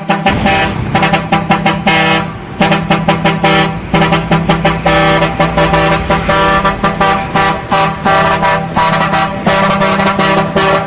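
Heavy truck's custom air horns blasting loudly in a quick, pulsing string of notes over a steady low drone.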